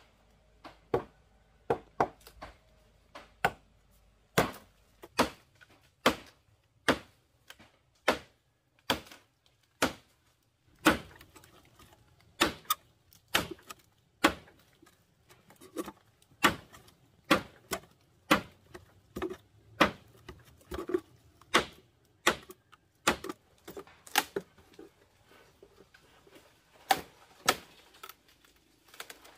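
Chopping with a blade into wood: a steady run of sharp knocks, about one a second, sometimes two close together.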